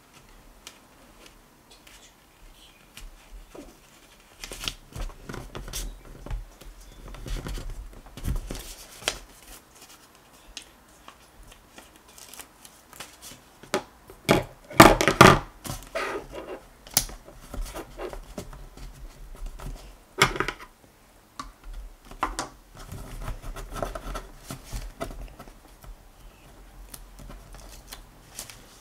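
Paper rustling and crinkling as sheets of paper are handled and folded on a tabletop, with scattered light taps and a louder burst of rustling about halfway through.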